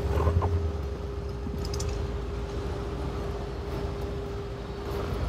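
Off-road vehicle engine running low and steady at crawling speed, with a steady whine held over the rumble.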